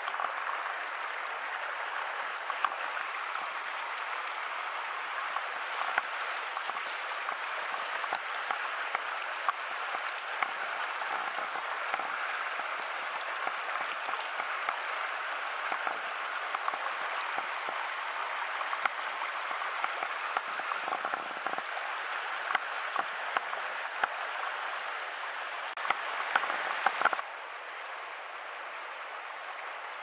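Shallow mountain stream rushing steadily over rocks close by, with scattered faint ticks. The rush drops suddenly to a softer level near the end.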